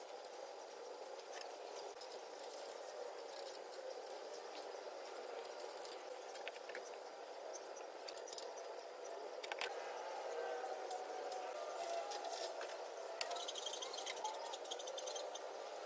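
Light clicks, taps and small rattles of hands fitting the blade and wire guard onto a wall-mounted industrial fan, over faint steady background noise. The clicks come more often in the second half.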